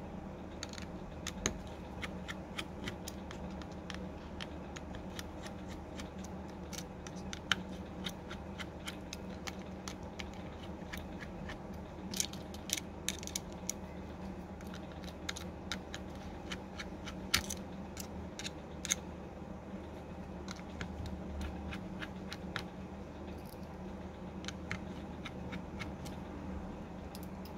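Small metal hand tools clicking and tapping against an opened smartphone's internal frame and parts, in irregular sharp clicks with a few louder ones, over a steady low hum.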